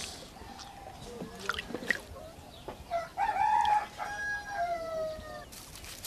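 A rooster crowing once, a long call beginning about three seconds in that slides down in pitch at its end, with a few faint knocks before it.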